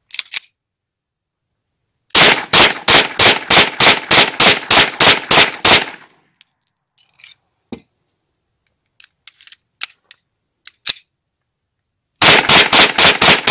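Copy of a Beretta 92FS 9 mm pistol fired in rapid succession, about four shots a second: a string of around fifteen shots, then a few light clicks, then another rapid string starting near the end.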